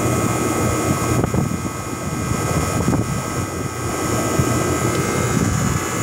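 Outdoor air-conditioner condenser unit running: a steady fan rush over a low hum, with a steady high tone.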